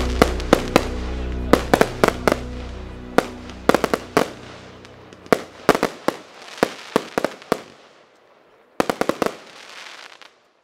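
Fireworks going off in a string of sharp bangs and crackles over background music. The music fades away about halfway through, and after a short lull a last quick cluster of bangs follows near the end.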